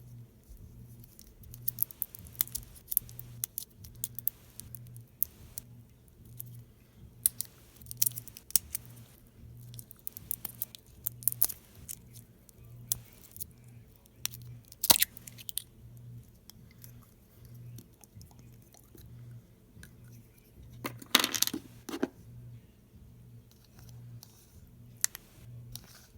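Slime being squished and pulled by hand: irregular sticky clicks and crackles, with a louder run of crackling near the end, over a steady low hum.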